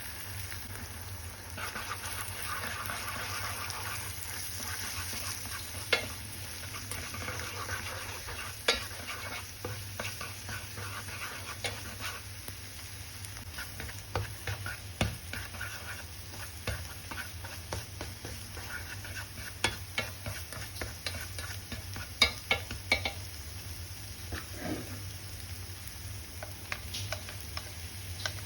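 Rice sizzling as it is stir-fried in a pan, with a spatula stirring and scraping it and frequent sharp clicks of the spatula against the pan.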